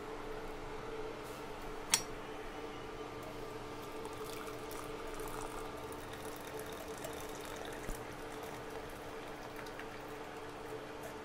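Hot tea trickling in a thin stream through a steel tea strainer into ceramic mugs, faint over a steady low hum, with one sharp click about two seconds in.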